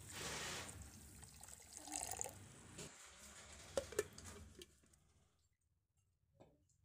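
Water poured from a glass into a steel mixer-grinder jar onto sugar and rice, splashing for about three seconds. Two sharp clicks follow about four seconds in.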